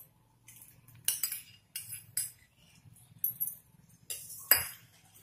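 Utensils clinking and scraping against a steel pan as curd is scraped in: a string of short, sharp clinks, the loudest about four and a half seconds in, over a faint steady low hum.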